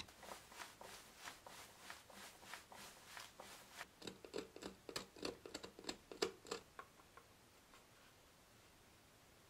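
Faint, light clicks about three times a second as a hand screwdriver turns a small screw into a brass hinge. From about four seconds in comes a quicker, louder run of small clicks and taps, which stops shortly before the last couple of seconds.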